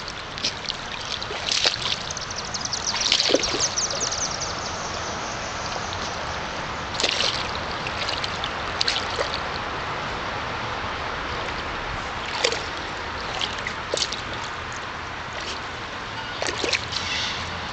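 A golden retriever splashing and sloshing through shallow water in an inflatable kiddie pool, pawing at the water in short splashes that come every few seconds, the biggest a few seconds in, over a steady hiss.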